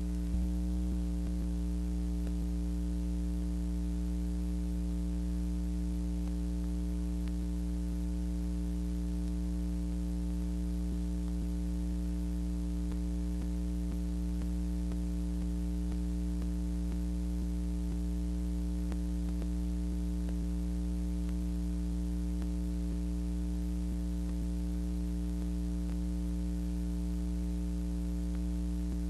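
Steady electrical hum with a faint hiss and a few light crackles: the blank soundtrack of a 1930s newsreel film transfer.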